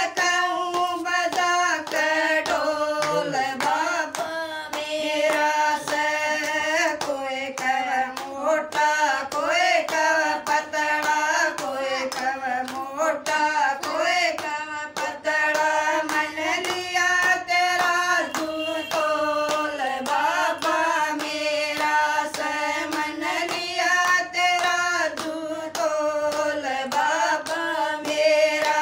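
Women singing a Haryanvi devotional bhajan together, with no instruments, keeping time with steady hand claps.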